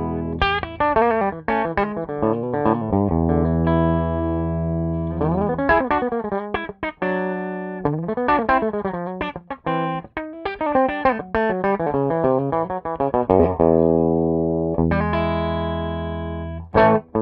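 Clean electric guitar with PAF-style 1959er humbucker pickups, played straight into a valve amp with no pedals: ringing, sustained chords alternating with quick single-note runs and arpeggios, a short break near the end.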